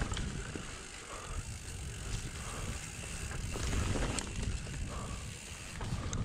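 Mountain bike rolling along a dirt trail: a steady rumble of tyres and wind, with scattered knocks and rattles from the bike over rough ground.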